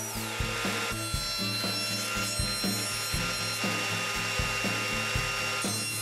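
Woodworking machines cutting a twisted ash board: a table saw ripping it lengthwise, then a jointer planing it flat, with a steady high machine whine over a dense cutting hiss. Regular low thuds, about three or four a second, run underneath.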